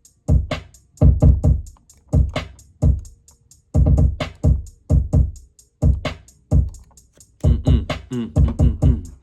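A programmed hip-hop drum loop playing back from beat-making software: deep kicks with a falling pitch, snare hits, and hi-hats ticking about four times a second.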